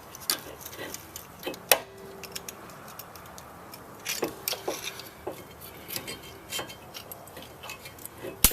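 A screwdriver prying at a rear disc brake pad and its clip on the caliper: scattered sharp metal clicks and clinks, a few leaving a short ring, with the loudest click near the end.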